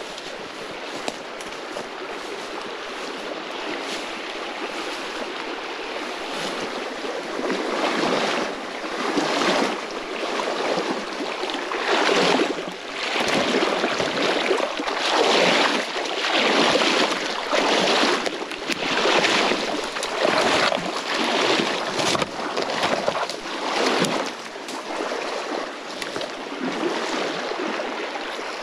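Wading through a shallow, fast-flowing creek: the steady rush of the stream, then from about eight seconds in, loud splashing surges every second or two as legs push through the water.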